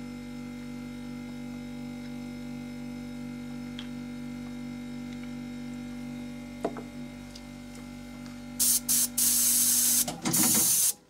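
A steady low hum, then, about eight and a half seconds in, an airbrush spraying in several short hissing bursts, followed by a longer spray near the end.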